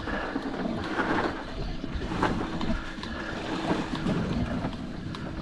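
Boat's motor running slow, with wind on the microphone and water around the hull; a steady hum comes in about two seconds in.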